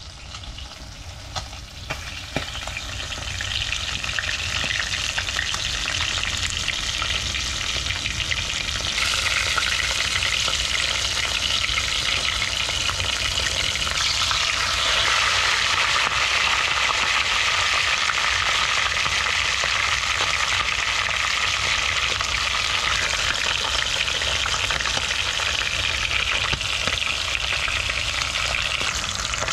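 Hot oil bubbling and crackling steadily as a split テンス (razorfish) deep-fries unbattered in a wok. The sizzle builds over the first few seconds and grows louder again about halfway through, when the fish is lifted and turned in the oil.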